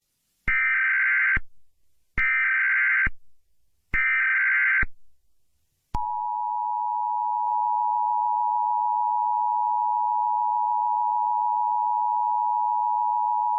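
Emergency Alert System broadcast: three short bursts of SAME digital header data, a shrill warbling buzz, then a long steady attention tone of about 1 kHz that starts about six seconds in.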